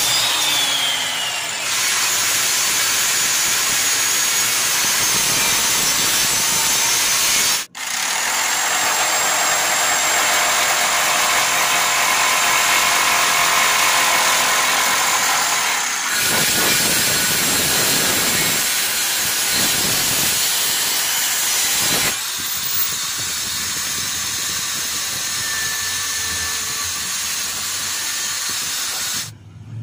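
Several power tools cutting and boring wood in turn, in short clips: a miter saw's blade running through a board, an electric jigsaw cutting a plank, and a Makute electric drill in a drill stand boring into a wooden block.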